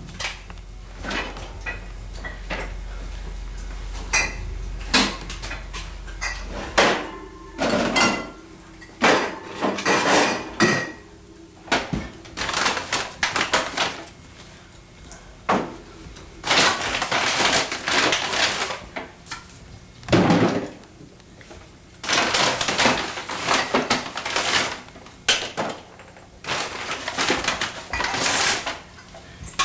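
Irregular knocks, clinks and rustling of household objects being handled, with a few longer scraping or rustling bursts.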